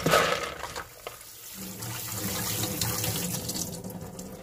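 Soaked mung beans and their soaking water poured from a plastic container onto a woven bamboo basket, the water splashing and draining through the weave. After about a second and a half it settles into a steady run of water.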